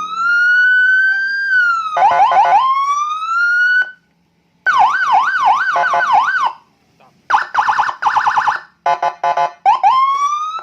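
Custom patwal police-escort electronic siren (45-watt module through a 25-watt speaker) cycling through its tones: a long slow rising and falling wail, briefly doubled by a second tone, then a fast up-and-down yelp, a rapid pulsing trill with short bursts, and about once a second a short rising whoop near the end.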